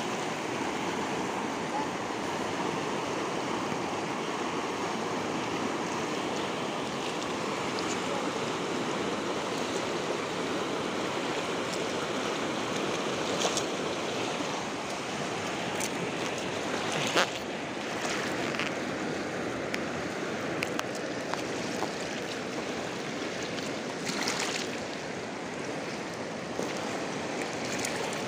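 Swift, turbulent river water rushing steadily, with a few brief sharp clicks, the loudest about seventeen seconds in.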